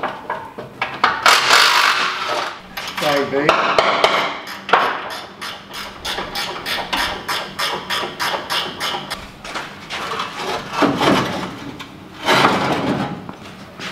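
Hammer blows on the rusty steel front end of an old ute, a run of sharp knocks at about three to four a second, among louder clanking and scraping of loose sheet metal as the front panels are worked free.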